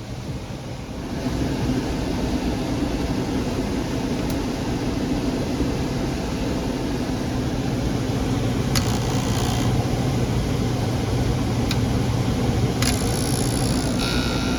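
Electric air handler running: a steady low electrical hum over a rush of air that comes up about a second in, with a few sharp clicks near the end.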